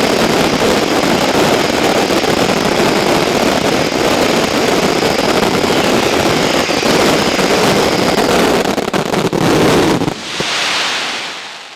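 Mascletà finale: a dense, continuous barrage of firecracker blasts merging into one roar, which stops suddenly about ten seconds in. A short swell of crowd applause and cheering follows and fades.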